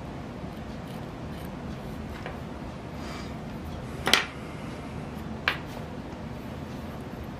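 Two sharp taps about a second and a half apart, the first the louder, as an X-Acto hobby knife and a plastic pipe fitting are set down and handled on a hardboard pegboard bench. A steady low hum runs underneath.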